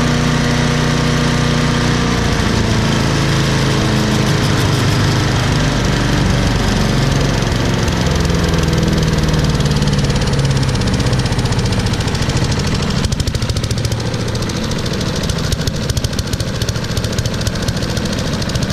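Troy-Bilt chipper shredder's Briggs & Stratton 1150 Series single-cylinder engine running steadily while warming up. About two-thirds of the way through, it drops back to a slower, choppier idle with the separate firing strokes easy to hear.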